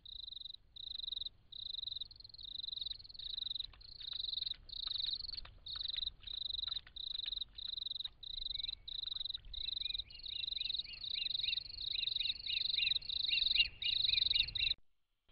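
Night crickets calling: a high, pulsed chirp repeating about twice a second. About halfway through a second caller joins with rapid short rising chirps a little lower in pitch, and the chorus cuts off suddenly just before the end.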